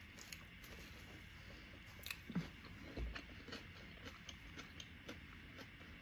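A person chewing a buffalo chicken wrap, with small wet clicks scattered throughout. A sharper click comes a little over two seconds in, and a low thump follows about a second later.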